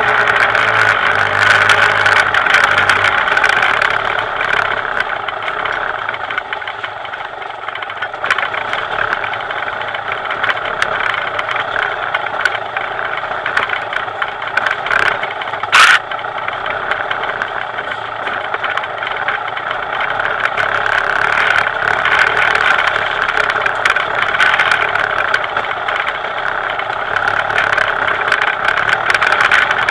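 Dirt bike engine running along under changing throttle, easing off through the middle and picking up again near the end. About 16 seconds in there is one sharp, loud knock.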